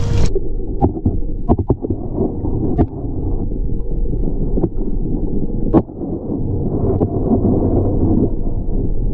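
Muffled underwater rumble of sea water around an action camera held just below the surface. The sound turns dull about a third of a second in as the camera goes under, with several sharp clicks and knocks scattered through it.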